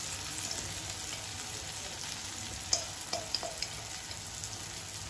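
Onion, tomato and green chilli masala sizzling steadily in a kadai on low heat, with red chilli powder just added. A few light clinks of a metal spoon against a glass spice jar come about halfway through.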